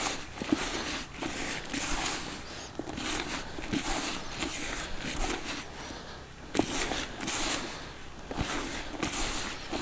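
Hands mixing dried groundbait with added water: irregular rustling and scrunching, with a few sharp knocks.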